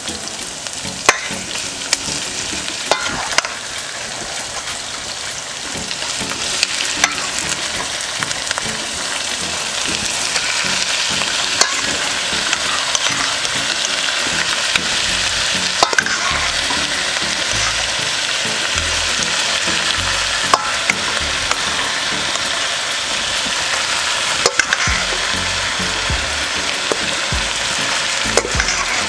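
Raw boneless chicken pieces sizzling as they go into hot grape seed oil and softened onions in a large pot. The sizzle grows louder from about six seconds in as more chicken is added, with occasional sharp clicks.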